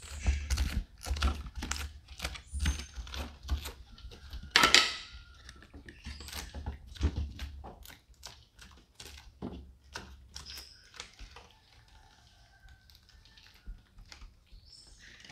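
Metal spoon scraping seeds and pulp out of a halved pumpkin: a quick run of short scrapes and clicks, one louder stroke about four and a half seconds in, thinning out in the second half.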